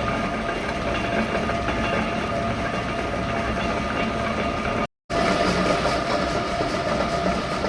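Metal lathe running steadily, a constant mechanical whine with rattling clatter, cut off by a brief gap of silence about five seconds in.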